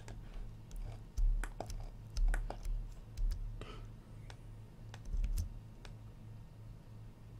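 Irregular clicks and taps of a computer keyboard and mouse, with a few louder thumps, over a steady low electrical hum.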